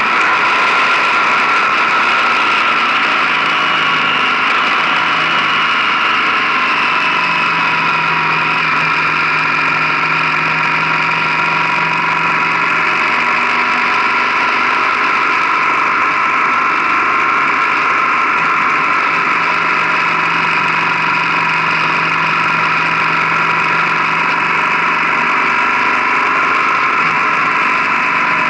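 Motorcycle under way at a steady speed: its engine running with a steady note that drifts only slightly, mixed with wind and road noise.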